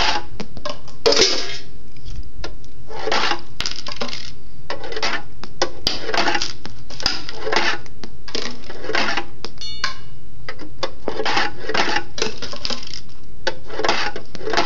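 Skateboard bearings clattering down a fingerboard ramp and rattling through cardboard tubes: a steady run of metallic clinks and rattles, about one or two a second.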